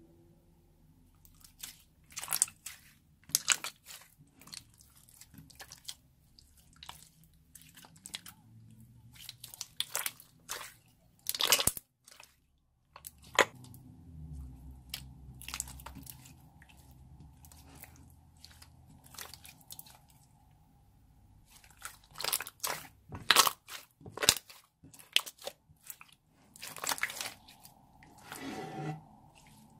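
Clear slime mixed with lipstick chunks being squeezed, stretched and pressed by hand, giving irregular sticky clicks, pops and crackles.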